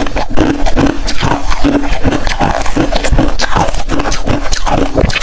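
Hard freezer ice being bitten and chewed close to the microphone: a rapid, continuous run of loud, crisp crunches.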